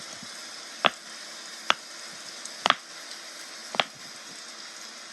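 Bubbles of a silicone pop-it fidget toy being pressed, each giving a short sharp pop, about one a second, with one quick double pop.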